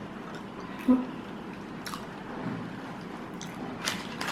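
Close-up chewing of a mouthful of burger: soft wet mouth sounds with scattered small clicks, a sharp louder sound about a second in, and busier clicking near the end.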